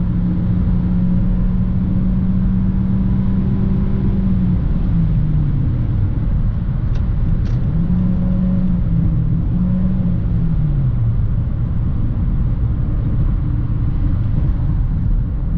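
Nissan sedan heard from inside the cabin while driving, with steady road and tyre noise under a constant engine drone. The drone drops in pitch about a third of the way in, rises back a few seconds later, then drops again, as the engine speed falls and climbs. Two faint ticks sound partway through.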